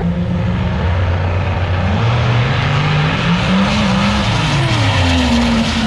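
No-prep drag cars making a pass down the strip at full throttle: loud engines whose pitch climbs steadily as they accelerate, with one engine's note dropping away near the end.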